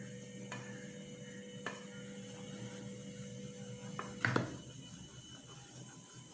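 A spoon stirring rice flour into hot water in a bowl to make a dough, with a few light knocks of the spoon against the bowl, the loudest about four seconds in. A steady low hum runs underneath.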